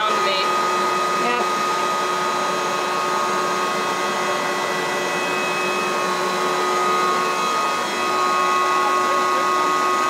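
Vacuum used to suck up honey bees, running steadily with a constant motor whine.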